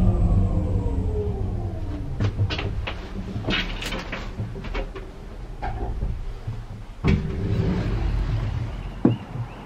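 Slope car's drive whining down in pitch over a rumble as the car comes to a stop, then a run of clicks and knocks and a thump about seven seconds in as the cabin door opens.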